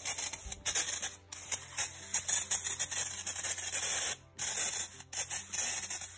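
Aerosol brake cleaner spraying onto a cast-iron cylinder head in long hissing bursts, with several short breaks in the spray, flushing off old valve-lapping compound.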